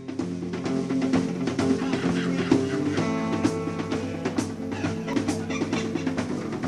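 Music: a band playing, with guitar and a drum kit keeping a steady beat.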